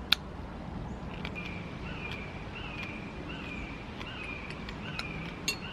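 A bird outside calling over and over, a short high falling note about every two-thirds of a second. A spoon clicks against a glass dessert bowl at the very start and twice near the end.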